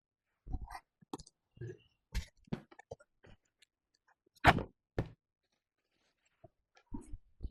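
Irregular knocks, clicks and thumps in a small room, the loudest a single thump about four and a half seconds in.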